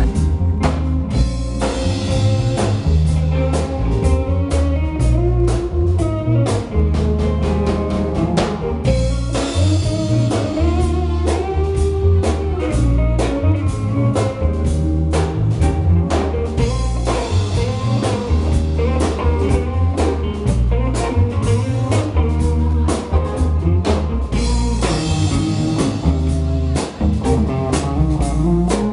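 Live band playing an instrumental: electric guitar lead over bass guitar and drum kit, with a steady bass line and frequent drum hits throughout.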